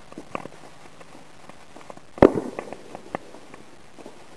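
Fireworks popping and crackling: a few small pops early on, then a sharp crack a little past two seconds in, followed by a quick run of smaller pops.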